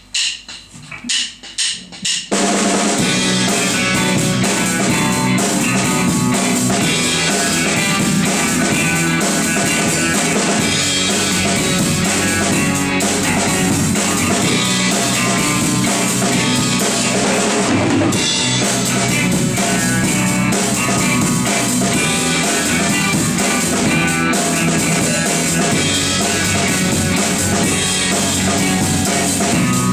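Rock band playing an instrumental introduction: a few sharp drum hits, then about two seconds in the full band comes in with the drum kit driving a steady beat.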